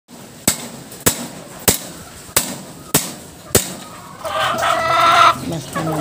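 Six sharp knocks about 0.6 seconds apart, then a rooster crows for about a second, starting about four seconds in.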